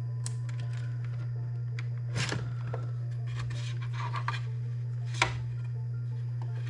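Scrapes, rubs and clicks of hands fitting a robotic mower's battery and its wiring into the plastic battery compartment, with a sharp click about five seconds in. A steady low hum runs underneath.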